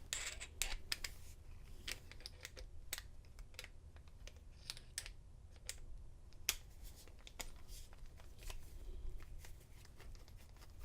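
Faint, irregular small clicks and ticks of a screwdriver backing out the Phillips screw that holds the cylinder in a Schlage padlock.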